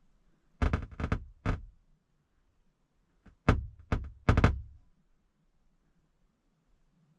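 Sharp pops of static from a Chinook camper van's house speakers with the radio switched off, in two clusters of four or five, about three seconds apart. The cause is unknown; the owner wonders whether it is electricity in the air after a lightning storm.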